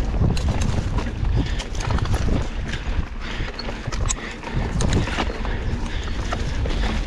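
Scott Spark RC mountain bike ridden over rough trail: wind rushing over the action camera's microphone, with a dense run of irregular clicks and rattles from the bike and tyres on bumpy ground.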